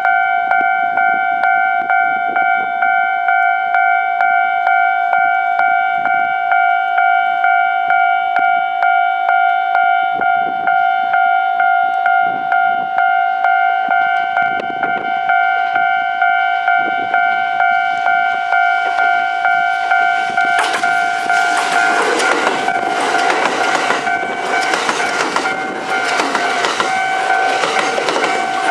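Japanese level crossing warning bell ringing steadily in quick repeated dings. About twenty seconds in, a Kintetsu 22600 series 'Ace' electric limited express arrives and passes close by: a rising rush of train noise with wheels clattering over the rail joints, the bell still ringing underneath.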